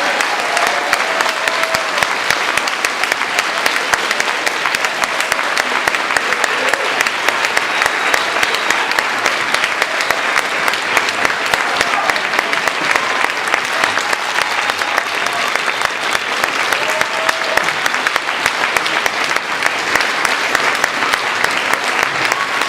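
Large audience clapping steadily and continuously, with faint voices and cheers mixed in.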